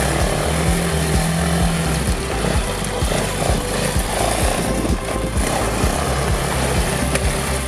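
Engine of a Bashan 250 quad bike (ATV) running as it is ridden along a dirt track past the camera, with background music mixed in.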